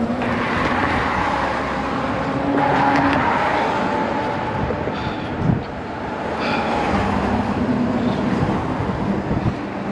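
Car traffic passing on the drawbridge roadway, a steady rush that swells around three seconds in, with a short knock partway through.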